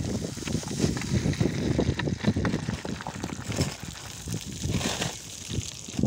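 Wind buffeting the phone's microphone as a gusty low rumble, with a few short crunches of footsteps on loose scree about midway and near the end.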